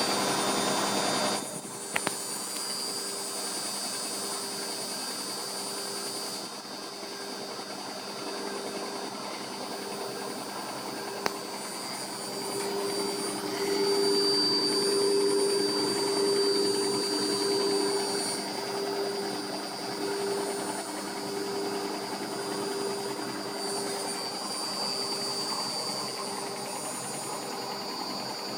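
Washing machine running through its cycle: a steady motor hum and whine that grows louder for a few seconds midway, with a couple of single sharp clicks.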